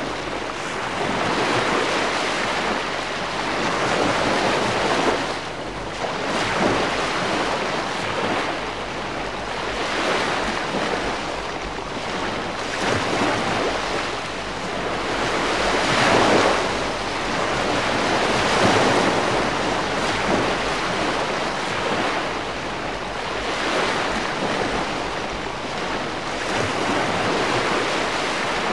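Calm sea washing onto the shore: gentle waves surging and drawing back in a continuous hiss that swells and eases every few seconds.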